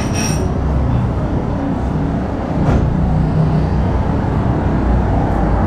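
Churro dough frying in a large round fryer of hot oil, a steady sizzle over a low rumble, with a brief metallic clink at the very start.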